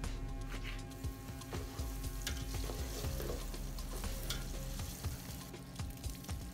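Sliced onions sizzling in hot oil in a steel pot, with a spatula stirring them and clicking against the pot.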